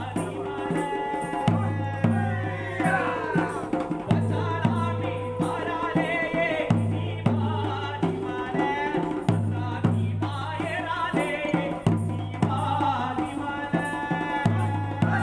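Tulu Kangeelu folk music played live: hand-beaten drums strike deep, ringing strokes in a driving, uneven rhythm, with voices singing the folk song over them.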